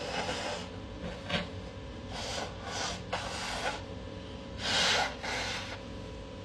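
A person in a sneezing fit making a string of short, breathy nose sounds between sneezes, about seven in all, the loudest about five seconds in.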